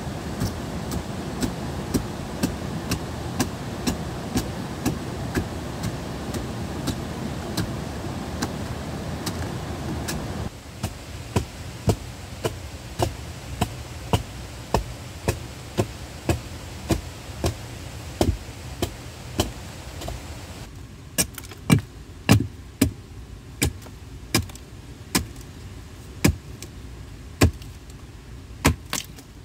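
Steady, evenly spaced knocks of a tool striking wood, nearly two a second. For the first third they sound over a steady rushing noise that stops abruptly; about two-thirds of the way through the strikes grow louder.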